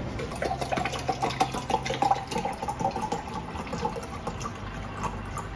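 Water poured from a plastic bottle into a Nespresso coffee machine's clear plastic water tank, splashing and gurgling as the tank fills. It is loudest over the first three seconds and then eases.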